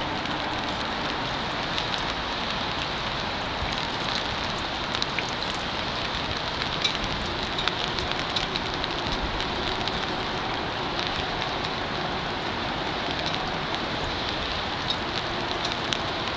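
Steady rain falling, with scattered sharper ticks of single drops.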